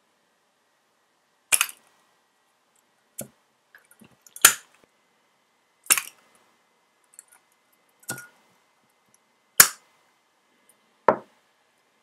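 Zippo lighter's hinged metal lid being popped open and snapped shut in one-handed tricks: sharp metallic clicks, about seven of them, roughly one every second and a half.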